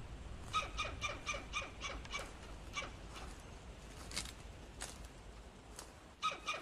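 A squirrel barking: a quick run of short, sharp, repeated calls, about four a second, then a few scattered ones, with a new run starting near the end. Two sharp clicks sound in the middle.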